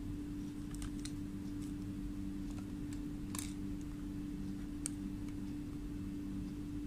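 Steady low hum with a few faint clicks and taps as multimeter test probes are handled and touched to a small component's leads; the clearest tap comes about three and a half seconds in.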